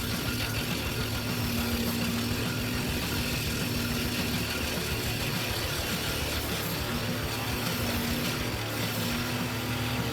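A heavy machine's engine or motor running steadily, a constant low drone with no pauses or changes in speed.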